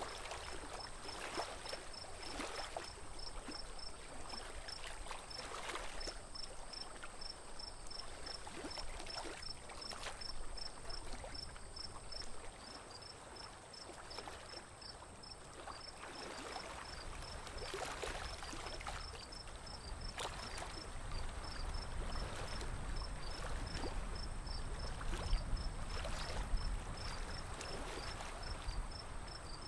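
Water splashing and lapping around a wooden boat as it is poled along, with a rapid, high-pitched chirping repeating several times a second in the background.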